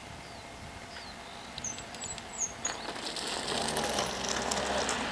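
Birds chirping in short, high, falling calls, then a car approaching on the asphalt road, its tyre and engine noise swelling over the last second and a half.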